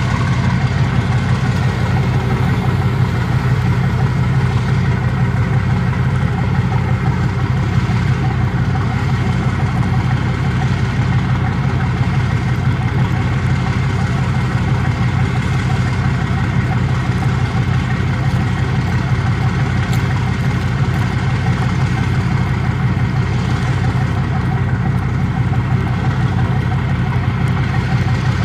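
Twin diesel engines of a 20 m patrol boat idling steadily, a deep even hum with no change in speed.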